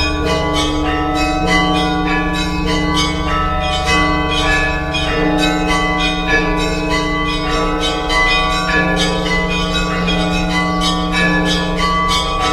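Orthodox church bells ringing: a continuous, rapid pattern of strikes on smaller bells over the steady hum of larger, lower bells.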